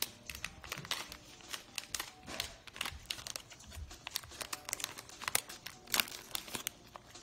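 A plastic snack bag of crispy mozzarella cheese crinkling and crackling irregularly as small hands pull it open, with a sharper crackle near the end.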